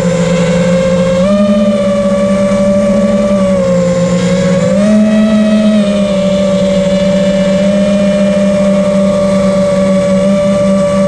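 FPV quadcopter's brushless motors and three-blade props buzzing steadily in flight, the pitch stepping up and down a few times as the throttle changes.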